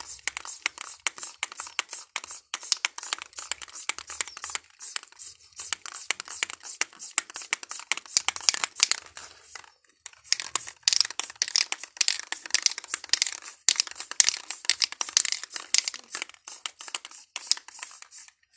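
Aerosol spray-paint can hissing in many short, rapid bursts, several a second, as the nozzle is flicked sideways to lay down fur strokes. There is a brief pause about ten seconds in.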